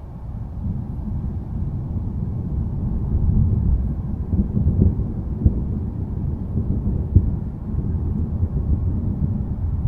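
Thunder rolling in a low rumble that swells over the first few seconds and stays strong, with two short sharp cracks about five and a half and seven seconds in.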